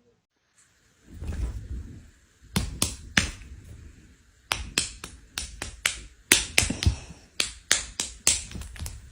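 A series of sharp taps, more than a dozen at uneven intervals: three close together, then after a short gap a longer, quicker run.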